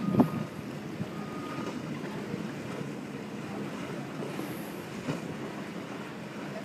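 Steady rush of wind and choppy water, with a loud short thump just after the start. Two short high electronic beeps sound in the first two seconds.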